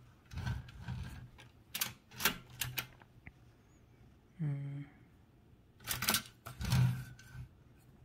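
Toshiba BW-3112 Japanese kanji typewriter clacking, with a string of sharp mechanical clicks and clunks in two bursts as characters are selected and struck. A short hum from a person comes about halfway through.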